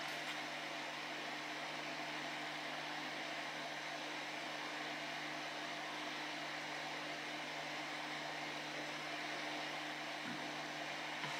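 Steady hiss with a faint low hum underneath: room tone with no distinct event.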